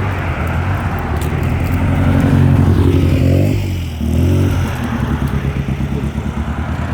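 Hill-climb race car engines driving past at low speed on the descent; the engine pitch rises, drops sharply about four seconds in, then climbs again.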